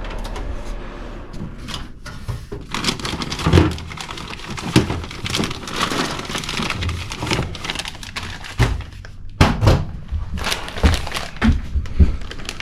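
Objects being handled and rummaged through: irregular knocks and clatter with crinkling, typical of picking up and moving hard plastic parts.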